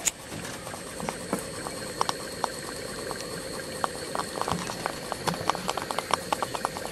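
Stuart Turner S50 model steam engine running on live steam, with almost no mechanical noise of its own: irregular light ticking and spitting over a steady faint hiss.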